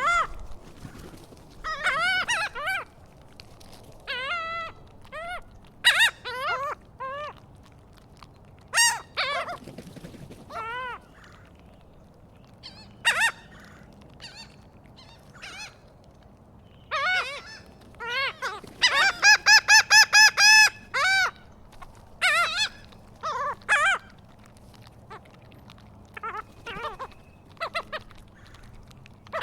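Seagulls calling: scattered single yelping calls, then a fast run of about eight calls in a row around twenty seconds in.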